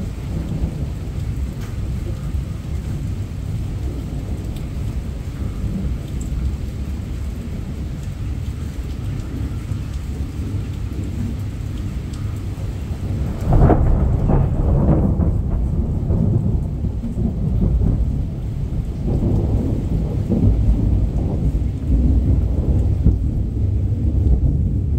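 Heavy rain falling steadily in a thunderstorm, with a low rumble of thunder. About halfway through, a close thunderclap breaks in suddenly and louder, then rolls on in uneven waves of rumbling.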